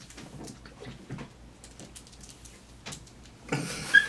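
Two people chugging carbonated soda from upturned 2-liter plastic bottles: faint repeated gulping and glugging, then a louder fizzy rush with a brief squeak about three and a half seconds in.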